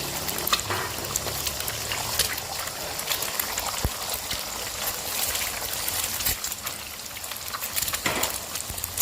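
Egg and garlic sizzling in hot oil, with occasional sharp clicks through the crackle.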